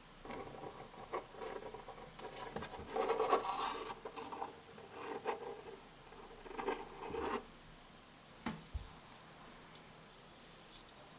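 Hands handling a closed folding knife, fingers rubbing and scratching over its burl wood handle, coming and going, with a couple of light clicks.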